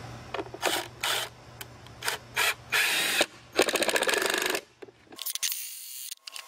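Cordless drill-driver driving a thin screw through a reclaimed wooden board. The motor runs in several short pulses, then in two longer runs as the screw goes in.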